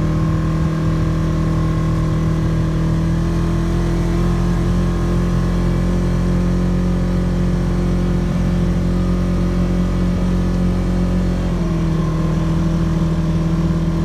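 Polaris RZR side-by-side's engine running steadily while driving, heard from inside the cab. The engine note steps down about three-quarters of the way through as it eases off.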